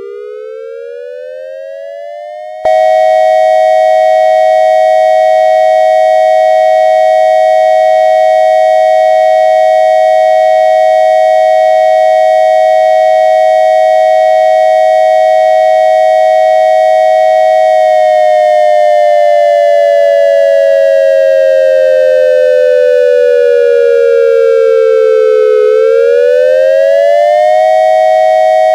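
Synthesized dual-tone electronic fire siren, made from triangle waves in imitation of an ASC siren with a digital electronic controller. It winds up in pitch, then about three seconds in jumps louder into a steady two-note chord. The chord holds until about eighteen seconds in, slowly sags in pitch, climbs quickly back and holds again.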